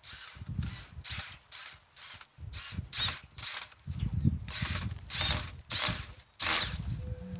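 A metal screw-in hook being twisted by hand into a tree trunk: rhythmic creaking and grinding strokes, about two a second, growing louder toward the end.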